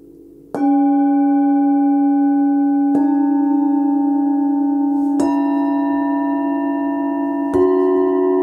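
Hand-forged Tibetan singing bowls from a seven-note set, struck in turn with a felt-padded mallet. There are four strikes about two seconds apart, each on a different bowl, and each bowl rings on steadily so the tones pile up into a sustained chord.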